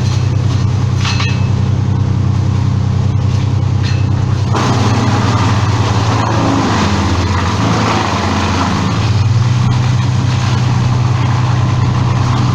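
A large engine running steadily, with a louder noisy layer joining about four and a half seconds in.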